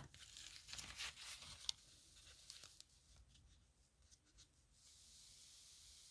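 Faint scratching and rustling of writing and handling paper, with a sharp click at the start and another small click under two seconds in, then a few light ticks. A steady faint hiss takes over near the end.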